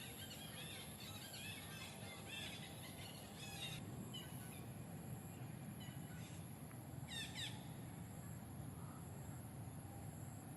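Outdoor ambience with a steady hiss and short, high chirping animal calls, many of them in the first few seconds, then one falling call about seven seconds in.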